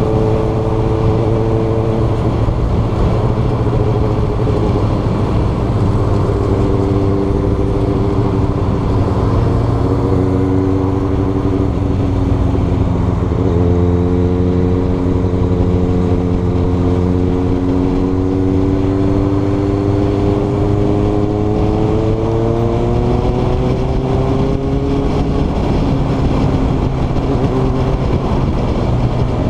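Sport motorcycle engine running on the move, heard close up with wind rush. The engine note climbs slowly as the bike pulls through the gears and drops sharply a few times at gear changes, once about halfway through and again near the end.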